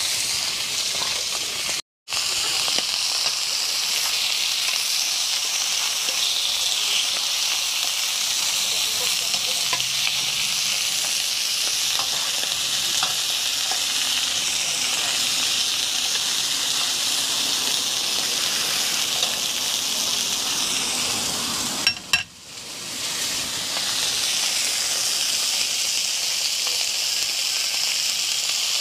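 Pieces of barracuda frying in hot oil in a pot over a charcoal fire: a steady sizzle. The sound cuts out briefly about two seconds in and dips again around twenty-two seconds.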